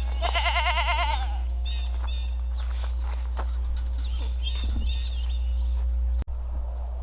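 A goat bleats once, a wavering call about a second long, followed by small birds chirping.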